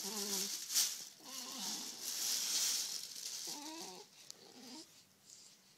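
A baby cooing: four short, wavering coos, the last two softer, over a rustling hiss that fades out about two-thirds of the way through.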